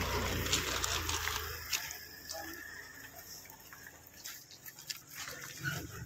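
Wind rumbling on a phone microphone for the first couple of seconds, then scattered crunching clicks of footsteps on wet gravel.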